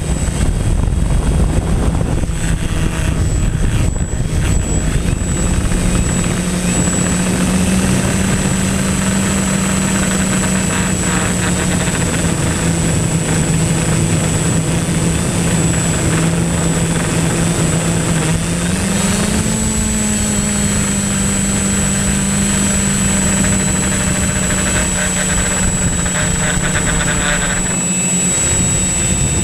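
Drone's propellers and motors whirring steadily in flight, heard from its onboard camera. The hum steps up slightly in pitch twice, about a quarter and two thirds of the way in, and wind rumbles on the microphone for the first few seconds.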